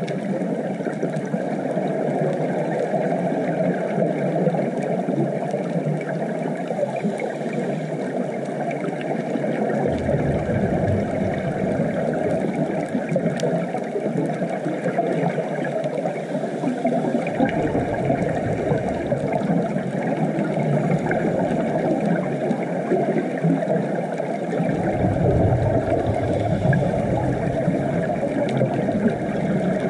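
Muffled underwater ambience heard through a GoPro's waterproof housing: a steady rushing hiss and rumble of the sea, with the deepest rumble cutting out and coming back a few times.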